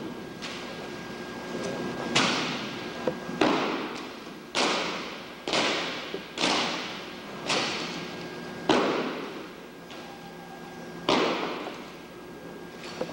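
Sharp knocks and slaps of rifles being handled in a silent precision rifle drill, about ten separate strikes at uneven intervals of a second or so. Each strike echoes around a large hall.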